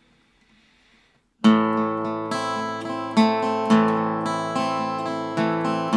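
Cutaway acoustic guitar strummed with a pick, playing a chord backing. After a near-silent start it comes in suddenly about a second and a half in, and sustained chords follow with strongly accented strokes.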